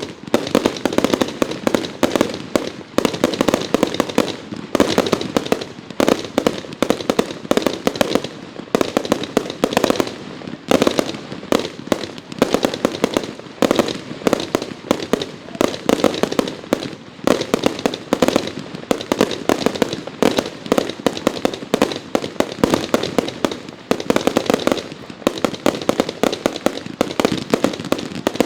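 Consumer fireworks going off in a dense barrage: sharp bangs, many each second, overlapping without a break.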